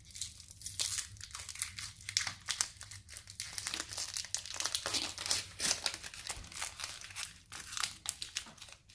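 Foil Pokémon booster pack wrapper being torn open and crinkled in the hands, a dense, irregular run of crackling rustles.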